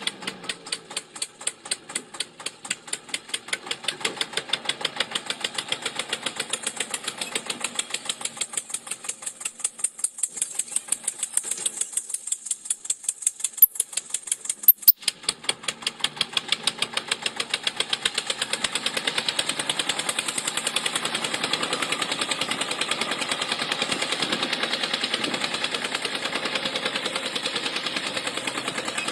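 Putt-putt engine sound of a diesel tractor, slower at first and then a faster, steady beat from about halfway through. Two sharp clicks stand out near the middle.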